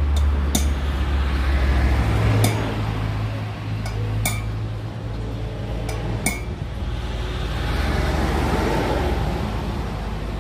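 Sharp metallic clinks of tools against the front wheel hub, five of them a second or two apart, over a steady low hum.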